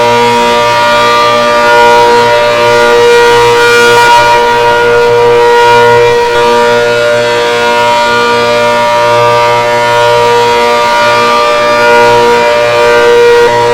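A siren sounding a loud, steady multi-tone note that holds its pitch, with some of its tones cutting out and coming back every few seconds.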